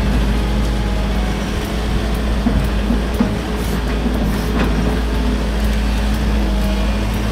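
Case 145 excavator's diesel engine running steadily, heard from inside the cab while the hydraulics work the bucket in sand, with a couple of light knocks about three seconds in.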